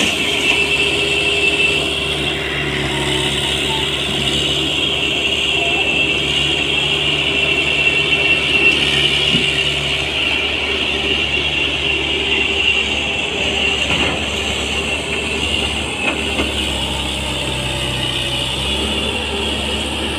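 JCB JS140 tracked excavator's diesel engine running steadily under load, with a steady high whine above it, as the machine dumps, swings and digs.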